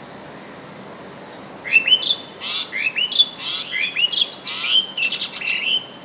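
Pied myna (Asian pied starling) calls: a quick run of rising whistled notes mixed with clicks. They start a little under two seconds in and last about four seconds.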